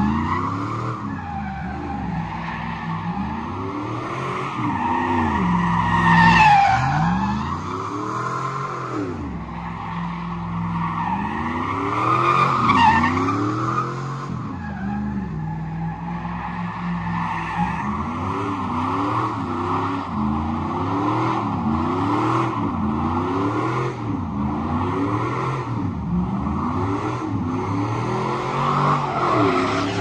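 Pickup truck doing donuts: its engine revs up and down over and over as the rear tyres squeal steadily on the pavement. The squeal swells louder about a quarter and again about halfway through.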